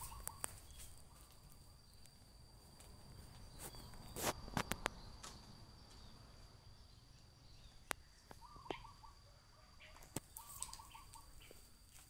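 Quiet outdoor ambience with a faint steady high whine, a few light taps and clicks (the loudest cluster about four seconds in, single ones later), and brief faint chirps near the middle and end.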